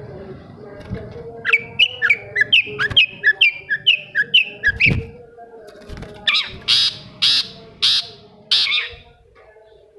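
Long-tailed shrike (cendet) singing: a quick run of short whistled notes, about three a second, followed by about five harsh, rasping calls.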